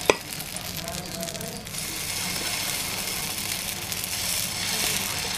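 Set dosa batter sizzling with a steady hiss on a hot iron dosa tawa as it is ladled out, with a single sharp click just after the start.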